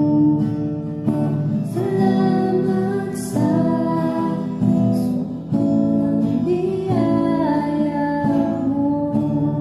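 Acoustic guitar strummed slowly with a woman singing a Tagalog worship song over it. The voice drops out near the end, leaving the guitar alone.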